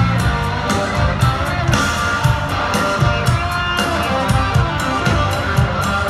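Live country-rock band playing in an arena: electric guitar lead over a steady drum beat, with little or no singing.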